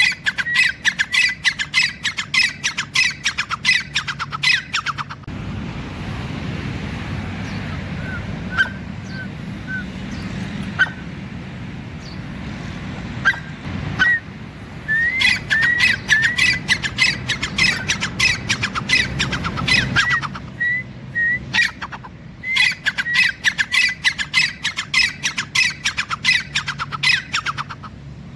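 A bird calling in rapid runs of harsh, squawking notes, in three bouts with a gap of about ten seconds of steady background noise between the first and second.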